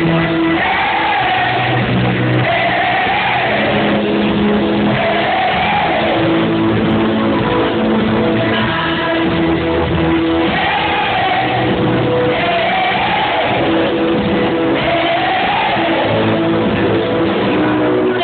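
Loud live pop-rock band performing with sung vocals, the melody repeating a short phrase about every two seconds over the band, recorded on a phone in the crowd with the top end cut off.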